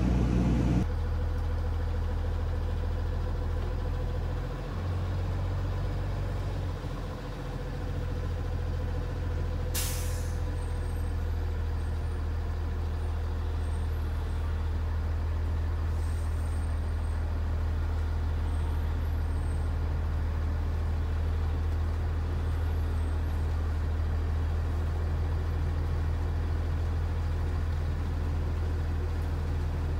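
School bus engine running at low speed with a steady low hum as the bus creeps up to floodwater. About ten seconds in comes one short hiss of the air brakes.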